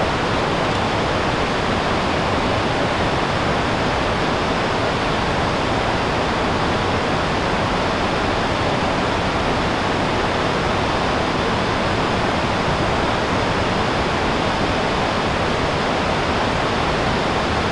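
River rapids rushing steadily over rock in a constant wash of white water.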